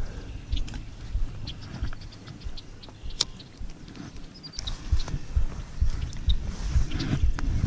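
Spinning reel being cranked to retrieve a small spinner, with light irregular clicking and uneven low thumps on the microphone that grow stronger about halfway through.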